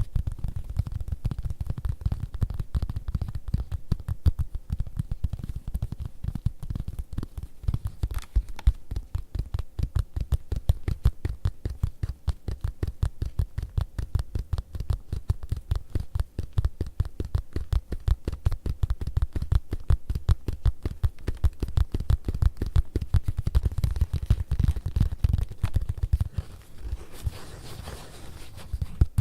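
Fingertips tapping rapidly on leather, a fast, even run of soft, dull taps, several a second.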